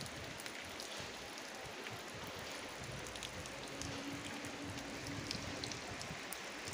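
Spring water running steadily out through a bamboo pipe, a continuous trickling splash with small drips.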